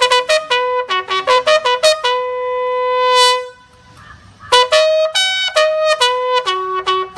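Bugle call: quick runs of short tongued notes, a long held note about two seconds in, a brief pause just after three seconds, then more quick notes ending in a long, lower held note near the end.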